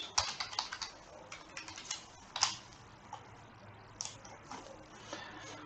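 Computer keyboard keys clicking as a password is typed: a run of quick keystrokes in the first two seconds, then a few single clicks, the loudest about two and a half seconds in.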